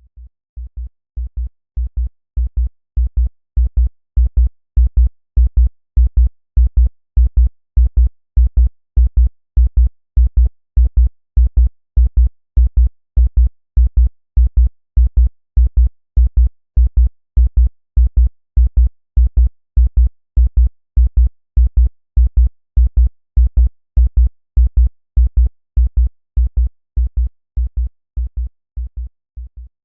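Synthesized heartbeat in a double pattern: pairs of short low thumps repeating at 100 beats a minute, fading in at the start and out near the end.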